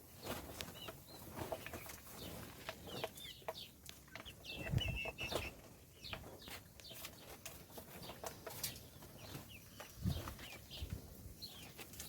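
A group of baby chicks chirping: many short, high peeps, some rising and falling, with scattered sharp clicks among them and a couple of low thumps near the middle and about ten seconds in.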